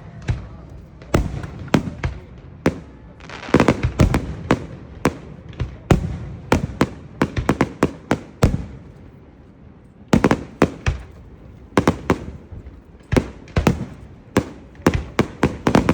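Fireworks going off in quick, irregular succession: many sharp bangs, some in rapid crackling clusters, with a short lull about halfway through.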